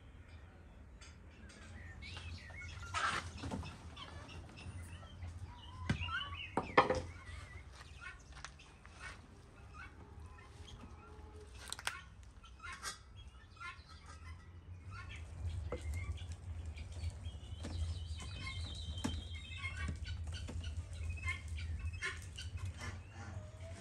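Chickens clucking and calling, with two louder calls in the first several seconds, over a steady low hum. Scattered light metallic clinks come from a wire grill basket being handled.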